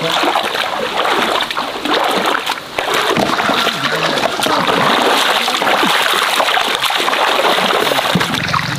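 Shallow muddy pond water splashing and sloshing as people wade through it and sweep hand nets to catch carp. The splashing is continuous, with a brief lull about two and a half seconds in.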